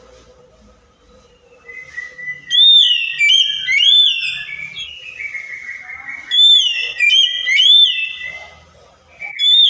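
Oriental magpie-robin (kacer) singing loud whistled phrases, many notes sweeping up and then dropping. The song starts about two seconds in, pauses briefly around the middle, and starts again near the end.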